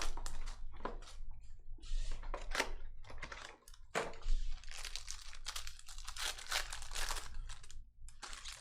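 A trading-card pack wrapper is torn open and crinkled while the cards are handled. It makes an irregular run of crackling and rustling.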